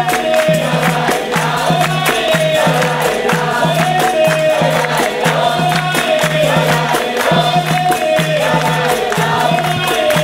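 Capoeira roda music: a group singing together over berimbaus, an atabaque drum, pandeiros and hand clapping, in a steady rhythm.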